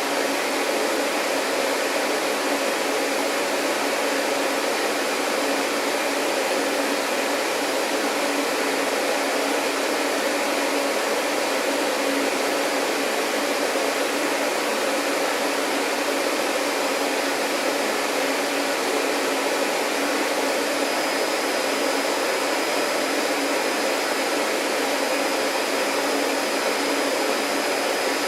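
Vacuum cleaner running steadily, an even motor hum and rush of air. A thin high whine joins about three-quarters of the way through.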